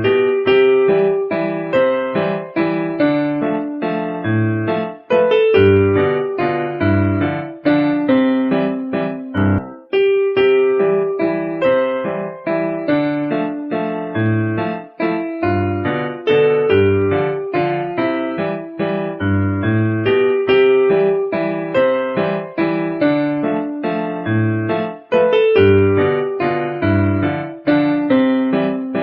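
Background music: a piano or electric-piano tune playing a steady run of notes in a repeating phrase.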